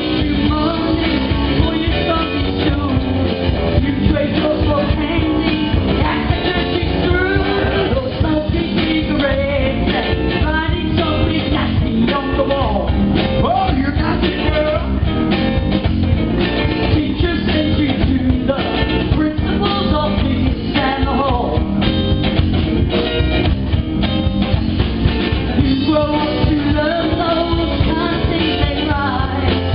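Live rock band playing a song: a singing voice over electric guitar, bass and drum kit, loud and continuous.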